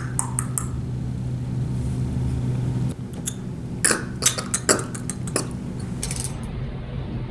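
A steady low hum that stops about three seconds in, followed by a handful of short, sharp clicks and clinks, a few of them in quick succession.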